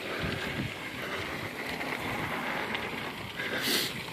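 Wind noise buffeting the microphone over a steady outdoor rumble, with a short breathy hiss near the end.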